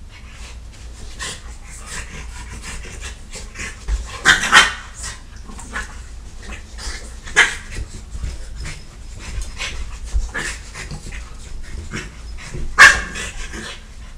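Dogs panting hard and scuffling while they play-fight, with a few louder sudden sounds, the loudest about four and a half and thirteen seconds in.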